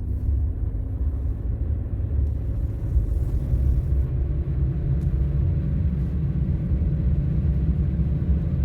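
Car interior noise while driving slowly on snow-covered streets: a steady low rumble of tyres and road with a faint engine hum.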